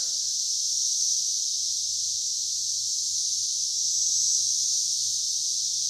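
Dense chorus of Brood X periodical cicadas: a steady, high-pitched, unbroken buzzing drone that swells slightly about four seconds in.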